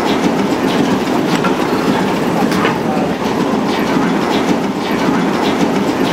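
1868 Otto & Langen vertical atmospheric engine running slowly: a steady mechanical clatter with sharp, irregular clicks about once or twice a second from its rack-and-gear drive to the flywheel.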